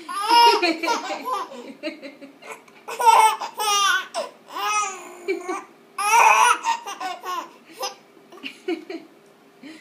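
Baby laughing in several high-pitched bursts of giggles, trailing off near the end.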